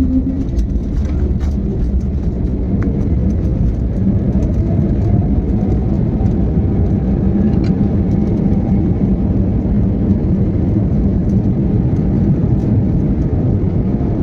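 Aeroplane on its landing approach: a loud, steady rumble with a faint whine slowly falling in pitch.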